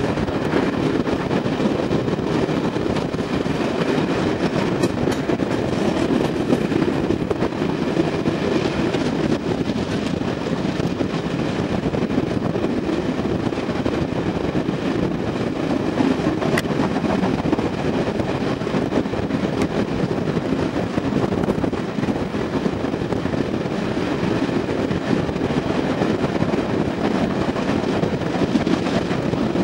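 Passenger train hauled by a BR Standard 2-6-4T steam tank locomotive, heard from an open carriage window: a steady running rumble of the coaches on the rails.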